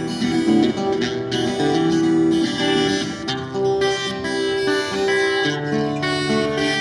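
Acoustic guitar strummed, playing a song's instrumental outro after the last sung line.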